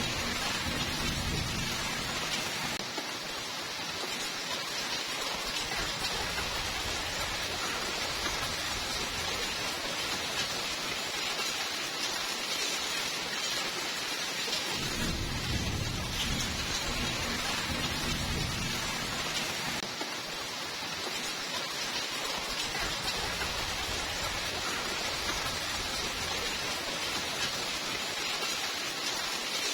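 Steady rain hiss with low thunder rumbling, once at the start and again for several seconds from about halfway through.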